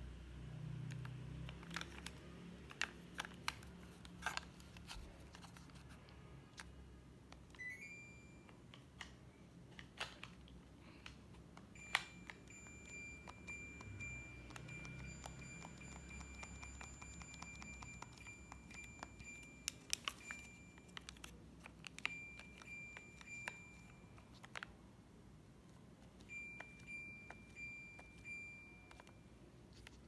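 Buttons on an LG air-conditioner remote clicking repeatedly, while the LG dual inverter split unit's indoor head gives a high, steady tone in stretches: it rises briefly about eight seconds in, holds for several seconds through the middle, and returns in shorter spells near the end.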